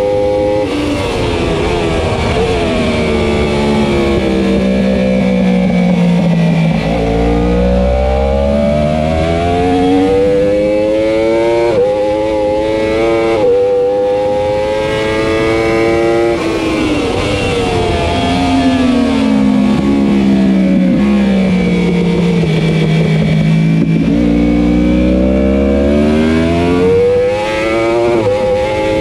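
2015 Yamaha R1's crossplane inline-four at race pace, heard from onboard. Twice the engine note sinks as the bike brakes and slows for a corner, then climbs again in steps, with a short drop in pitch at each upshift. Steady wind rush underneath.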